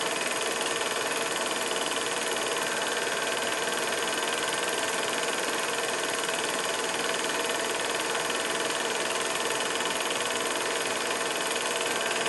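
Steady hiss with a faint hum, unchanging throughout, like the running noise of a machine or an old recording's noise floor.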